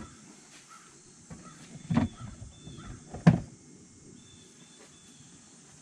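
Two dull thumps about a second apart, the second the louder, over a faint steady outdoor background with a thin high insect drone.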